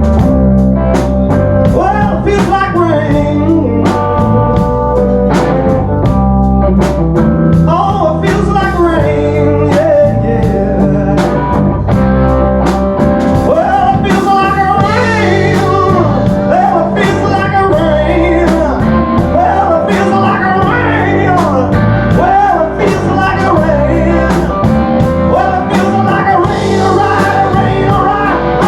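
Live blues-rock band playing a slow song: drums and bass under a lead melody that keeps bending up and down in pitch, with guitar.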